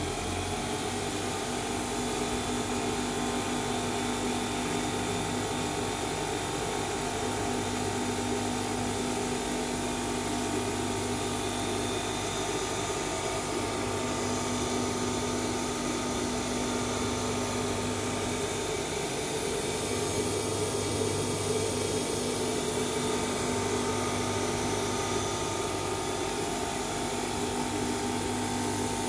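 Homemade 20 cm disc sander's 220 V electric motor running with no load, a steady whir and hum of the spinning disc. Its tone shifts slightly as the speed controller is turned at the start, then holds steady.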